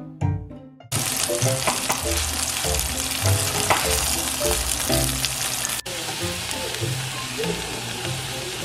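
Chicken breasts frying in oil in a pan. An even sizzle starts about a second in and breaks off for an instant about six seconds in, with piano music faintly underneath.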